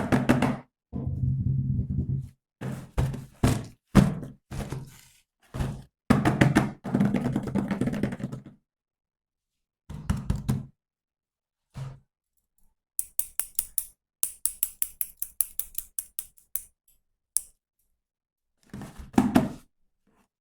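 Plastic toys and packaging being handled: a string of knocks and thunks, some with a low buzz, then a fast run of sharp clicks a little past halfway, and a few more knocks near the end.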